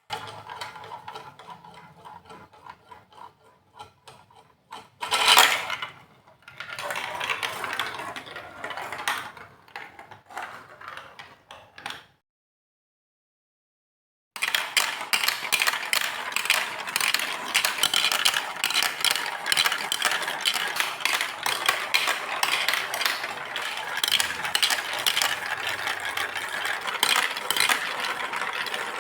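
Glass marbles rolling and clattering along a plastic Lego Duplo block track. There is scattered rattling at first with a loud clatter about five seconds in, then a short break of silence, then a dense, steady clatter of many marbles running together.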